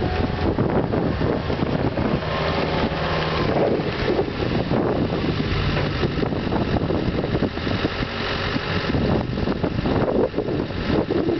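Skid steer engine running steadily, with wind buffeting the microphone.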